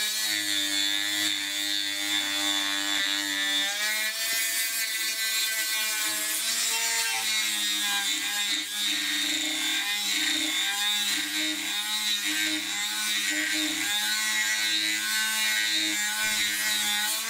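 Handheld rotary tool with a sanding drum running continuously, its motor whine wavering in pitch as the drum is worked against the steel claw of a hammer to shape it.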